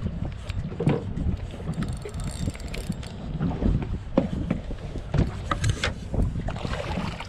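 Wind buffeting the microphone over water lapping against a drifting boat's fiberglass hull, with scattered knocks on the deck; no engine running.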